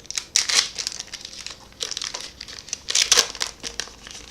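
Foil wrapper of a trading-card booster pack crinkling in irregular bursts as it is worked open by hand, proving hard to tear.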